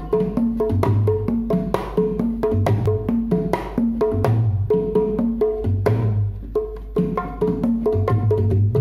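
A set of dangdut kendang drums, a mini kempul with ketipung drums, played by hand in a fast, continuous rhythm. Clusters of deep low strokes alternate with sharper, higher ringing slaps.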